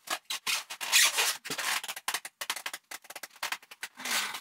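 Packing tape being pulled off a cardboard box, a run of rasping, ripping strokes with the cardboard rubbing, the loudest about a second in.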